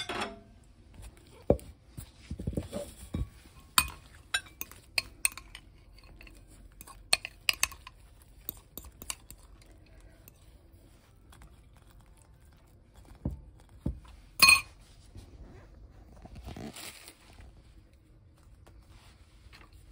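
Metal spoon clinking and tapping against a glass bowl as egg salad is scooped out and spread on bread: scattered light clinks, with one sharper clink about three-quarters of the way through.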